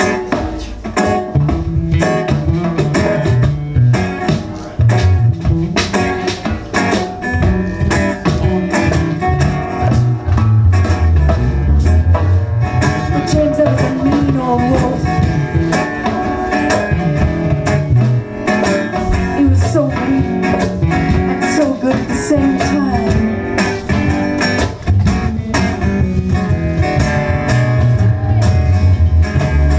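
Live folk-roots band playing a song: acoustic guitar and electric bass with violin and drums.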